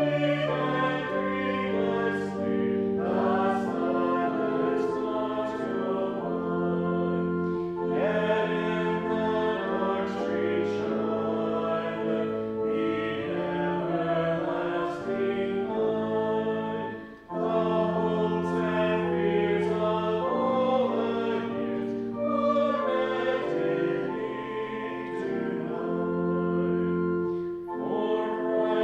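A choir singing a Christmas carol in sustained phrases of a few seconds each, with a brief break between phrases a little past halfway.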